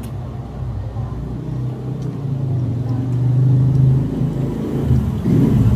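Low, steady rumble of a motor vehicle engine close by, growing louder over the first few seconds and surging again near the end.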